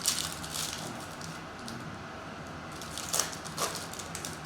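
Trading cards being handled and slid against each other, making short soft swishes and rustles. The loudest come right at the start, with two more about three seconds in.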